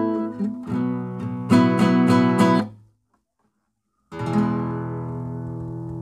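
Nylon-string classical guitar playing open chords in a shuffle arpeggio pattern, with several chord strokes that are cut off short a little under three seconds in. After about a second of silence, one final chord is struck and left to ring out.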